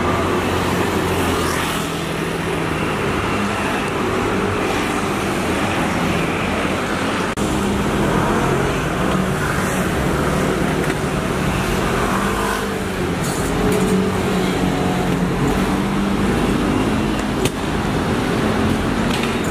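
Street traffic: scooters and cars running and passing, a steady mix of engine and road noise.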